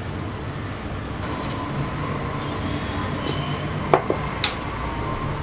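A few light clicks and knocks of a utensil against a plastic blender jar as cream is added, the two sharpest about four seconds in and half a second apart, over a steady low hum.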